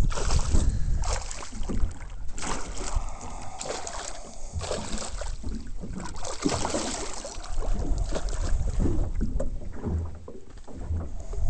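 Wind rumbling on the microphone over water noise, with irregular splashes as a hooked fish thrashes at the surface beside the boat.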